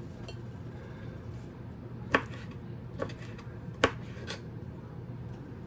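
Kitchen knife cutting raw shrimp on a plastic cutting board: four sharp knocks of the blade on the board about a second apart, from about two seconds in. A low steady hum runs underneath.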